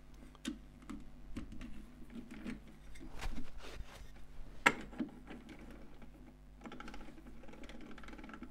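Scattered light clicks and taps of a wooden bowl being handled on the metal jaws of a lathe's scroll chuck, with one sharper click about halfway through, over a faint steady hum.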